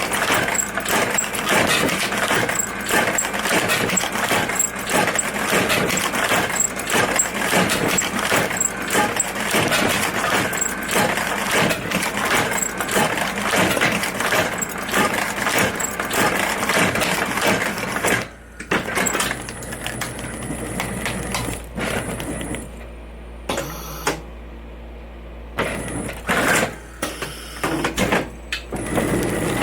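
Hope tatami sewing machine stitching a tatami, a loud rapid mechanical clatter of needle and feed strokes. About 18 seconds in the running stops, leaving only scattered clunks and knocks of the mechanism.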